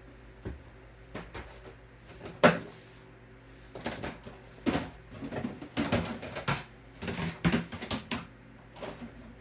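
Irregular clicks and knocks of plastic LEGO train cars and pieces being handled and set down, sparse at first and thickening into a busy clatter after about four seconds.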